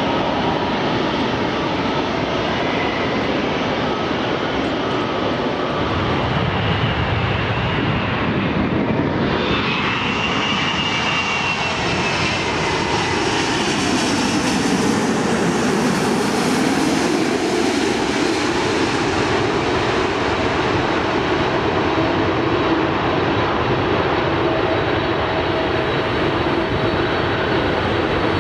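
Jet airliner engine noise throughout. About a third of the way in, an Airbus A380 on final approach passes low overhead with its four turbofans running, and their whine falls in pitch as it goes by.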